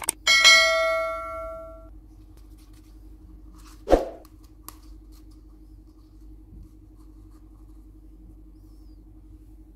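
Subscribe-button sound effect: a click, then a bright bell-like ding that rings out and fades over about a second and a half. About four seconds in comes one sharp knock.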